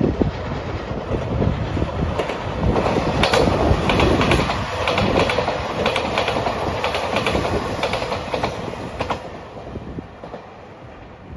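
JR Shikoku 2700 series diesel limited express train passing at speed. Its wheels clatter over the rail joints in a quick run of strokes; the noise builds, peaks midway and then fades as the train goes by.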